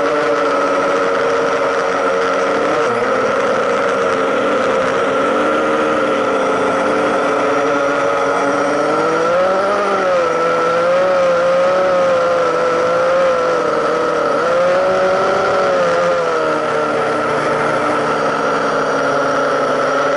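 A drone's motors and propellers whine steadily, heard close from the camera it carries. The whine is made of several tones that waver up and down in pitch about halfway through and again a few seconds later, as the motors change speed.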